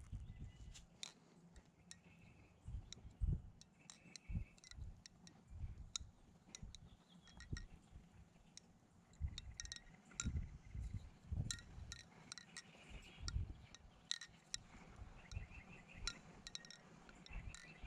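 Butterfly knife (balisong) being flipped: irregular sharp metallic clicks and clacks as the handles swing round and knock together, with dull low thumps in between.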